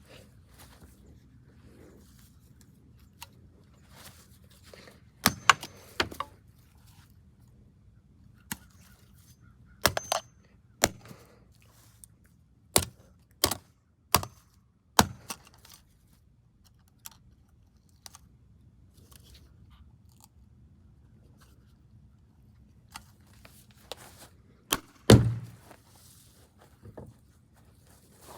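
A golf club striking a walkie-talkie: about a dozen sharp whacks at irregular intervals, with long pauses between groups and the loudest blow about 25 seconds in.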